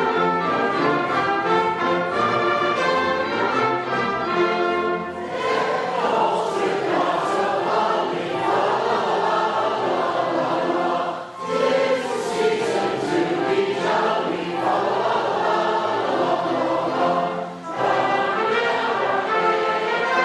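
Orchestral music with a choir singing sustained notes, with brief breaks between phrases about 11 seconds and 17 seconds in.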